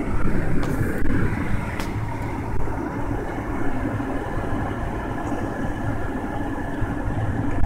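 Steady road and engine noise inside a car cabin at highway speed, mostly a low rumble, with a couple of faint clicks about a second and two seconds in.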